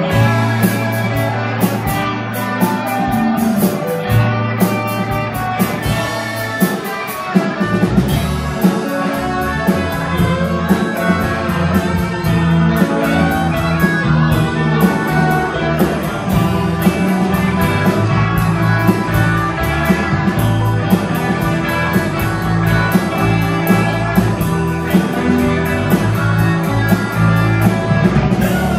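Live rock band playing an instrumental passage without vocals: electric guitars over bass and a steady drum-kit beat. The bass and drums fill out about seven seconds in.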